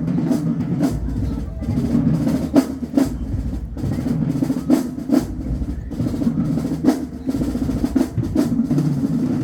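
Marching band drumline playing a cadence: sharp snare hits over a steady pulse of bass drums.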